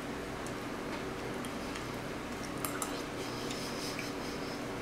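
Eating sounds: sparse small clicks and smacks of chewing and handling food, with a short cluster of sharper clicks about halfway through, over a steady low hum.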